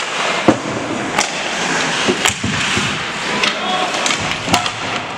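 Ice hockey play: skates scraping on the ice under a run of sharp clacks of sticks and puck, the loudest about half a second in.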